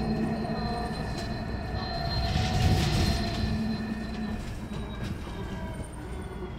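Battery-electric bus's traction motor whining with several steady high tones over low road rumble and cabin rattle as it drives; near the end the whine's pitch begins to fall as the bus slows.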